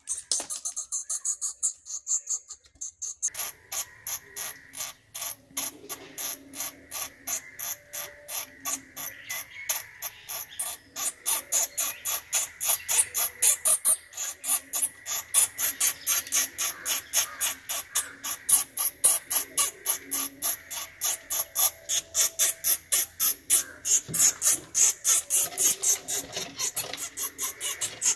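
Bats squeaking in a rapid, steady series of short high-pitched chirps, about three a second, growing louder about three seconds in.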